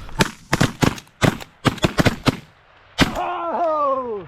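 A volley of shotgun blasts from several goose hunters, about nine shots in quick succession over three seconds. This is followed by a long call that slides down in pitch.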